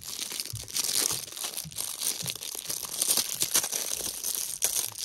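Clear plastic wrapping crinkling and tearing as it is pulled open by hand, in an irregular run of crackles and rustles.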